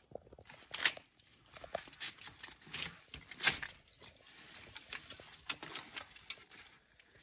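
Melanistic Asian water monitors feeding on raw chicken livers and gizzards: irregular wet clicks, smacks and scrapes as they snatch and gulp the meat and clamber over wood and the foam tray. The two loudest knocks come about a second in and about three and a half seconds in.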